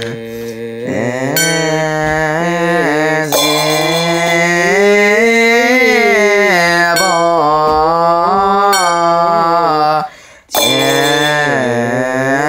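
Mahayana Buddhist liturgical chant sung in long, drawn-out notes whose pitch slowly rises and falls, with a brief breath-like break about ten seconds in.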